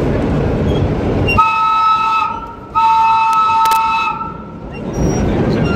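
Horn of a vintage R1-9 subway train sounding two blasts, a chord of steady tones: the first about a second long, the second about a second and a half. The train's running rumble can be heard before and after the horn.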